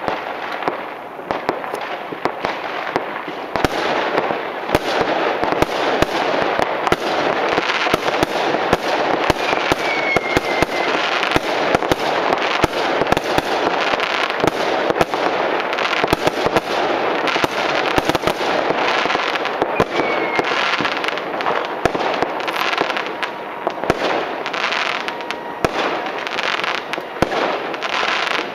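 Many fireworks rockets and firecrackers going off at once: a dense, unbroken barrage of bangs and crackles over a continuous rumbling wash, with a short falling whistle about ten seconds in and another about twenty seconds in.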